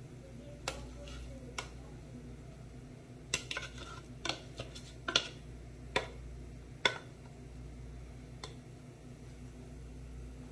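Plastic rice paddle knocking and scraping against an aluminium steamer pot and a plastic basket while cooked sticky rice is scooped out: scattered sharp clicks and taps, busiest in the middle, over a low steady hum.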